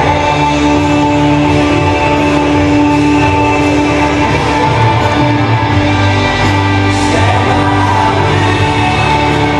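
Loud music with singing, playing steadily throughout.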